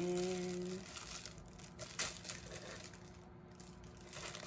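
Thin plastic bag crinkling as it is handled and opened, with a sharper crackle about two seconds in.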